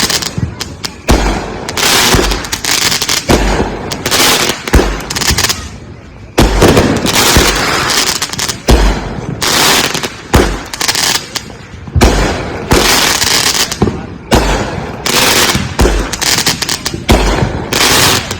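Consumer fireworks cake firing aerial shots in a steady run, about one boom a second, each with a deep thump, and crackling bursts between them.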